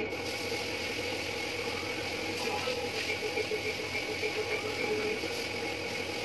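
Paint spray gun hissing steadily as it sprays paint, the hiss cutting in abruptly at the start, over the steady hum of a running machine.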